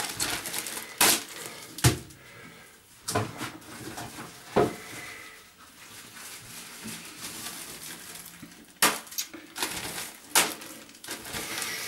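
Small household items being handled and put into plastic bags: scattered knocks and clatters of hard objects, about half a dozen, over a light rustling of the bags.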